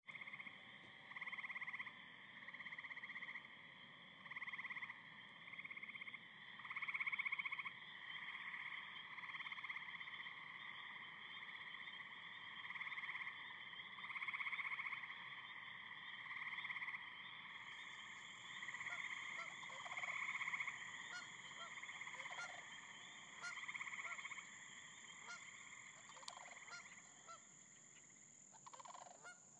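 Summer night chorus of frogs and insects: a steady high trilling with swelling calls every second or two. Just past halfway a thin, high, steady insect whine joins, and short chirps are scattered through the second half.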